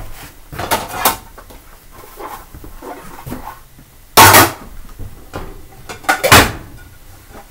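Dishes being washed and handled, clattering and knocking together in several short bursts with quieter clinks between; the loudest clatter comes about four seconds in and another just after six.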